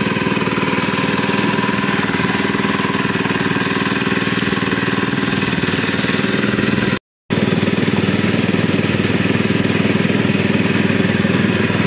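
Small engine running steadily at an even speed, the motor of a water pump draining a pond. The sound cuts out completely for a moment about seven seconds in, then resumes unchanged.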